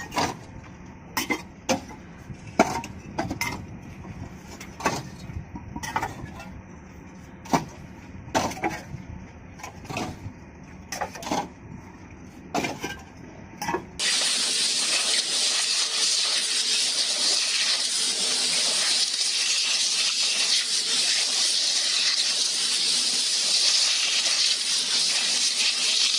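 Sharp clinks and knocks at irregular intervals, then about halfway through a steady loud hiss sets in abruptly and holds.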